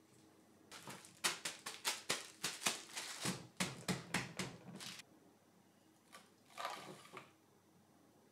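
Plastic cling wrap crinkling in a quick run of sharp crackles, about four a second, as tart dough is wrapped and pressed flat, then a shorter rustle of the wrap.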